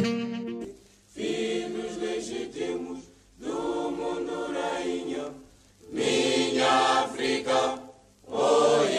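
A choir singing in four phrases of about two seconds each, with short pauses between them.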